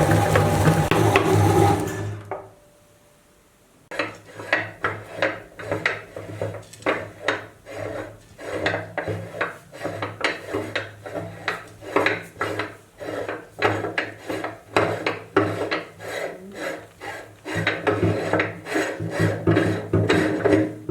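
Meat grinder running and grinding up rubbery light-up puffer balls: a steady motor hum under repeated rasping, scraping strokes, about two a second. The motor hum is loud for the first two seconds, stops for about two seconds, and then the grinding starts again.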